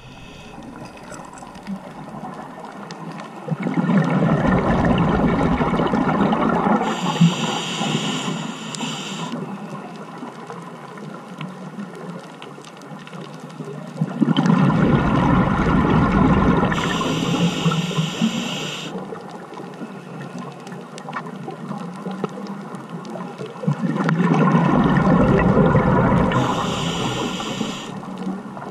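Scuba regulator breathing heard underwater through a GoPro housing: three breaths about ten seconds apart, each a loud surge of rumbling bubbles followed by a high hiss lasting about two seconds, over a low background wash of water.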